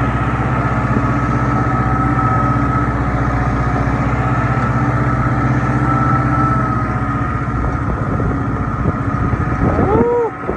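Kubota tractor's diesel engine running steadily with a low rumble, which eases off about eight seconds in. The tractor is being driven out over slick, snowy ground.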